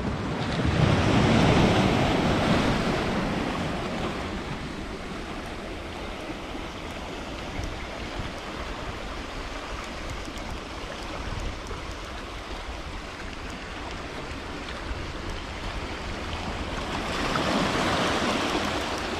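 Sea waves washing over a rocky shore. The surf swells louder twice, about a second in and again near the end.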